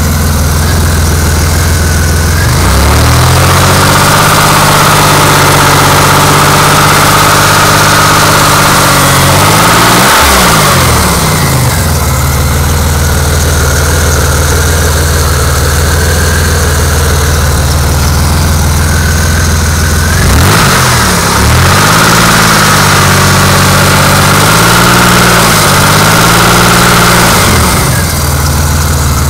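High-mileage Pontiac engine idling, revved and held for several seconds, dropped back to idle, then revved again unevenly before returning to idle. The owner takes the engine's knock for rod knock.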